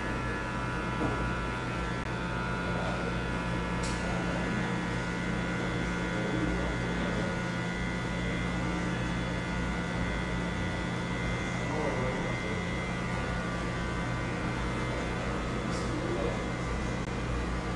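Electric hair clipper running steadily with an even buzzing hum as it trims the hair at the nape of the neck. Two brief clicks come about four seconds in and near the end.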